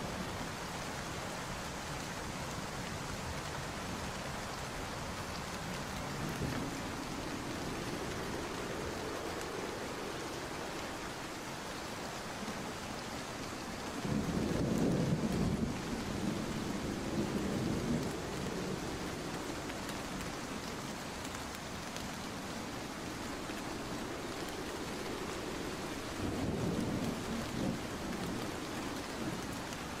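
Steady rain with low rumbles of distant thunder swelling three times, the loudest about halfway through.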